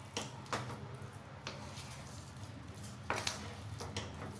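Wooden spatula stirring thick wheat-flour halwa in a nonstick pan: a few short scrapes and soft knocks against the pan, the loudest about three seconds in, over a low steady hum.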